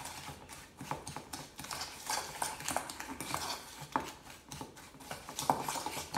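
Fork scraping and clinking against a stainless steel mixing bowl, stirring chopped pecans into a thick brown-sugar and butter paste in quick, irregular strokes.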